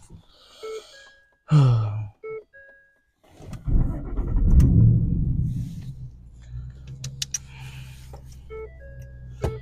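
Car's warning chime dinging repeatedly as the driver gets in. A few seconds in, the engine starts with a loud low rumble that settles into a steady idle.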